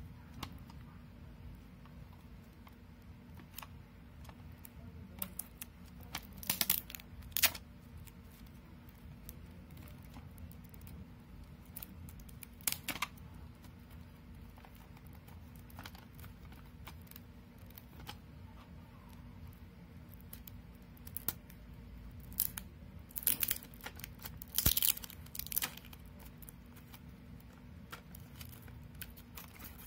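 A clear plastic case being handled: scattered plastic clicks, taps and rustles in a few short clusters, over a faint steady hum.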